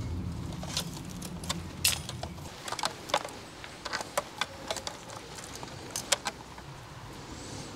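Thin insulated signal wires being handled and coiled: a series of light clicks and rattles, irregular and scattered, over a low rumble that fades out after the first couple of seconds.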